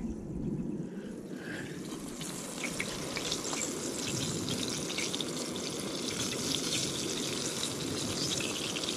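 Battered crappie fillets frying in oil in a cast-iron skillet: a steady sizzle full of small crackles, growing louder about two seconds in.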